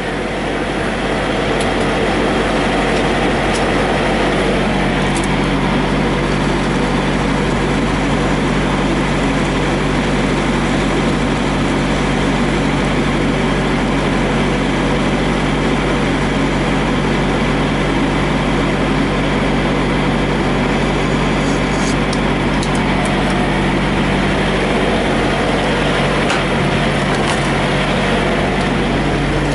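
Steady idle of semi-truck diesel engines at a truck-stop fuel island, mixed with the constant rush of diesel running through the pump nozzle into a semi's saddle tank.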